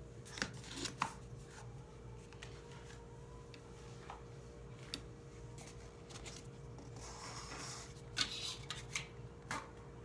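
Scattered desk-work sounds: a few sharp clicks and taps spaced irregularly, with a brief rustle late on, over a steady low electrical hum.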